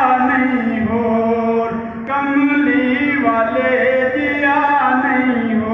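A man singing a Punjabi naat (devotional praise song) into a microphone, unaccompanied, holding long notes and gliding between them.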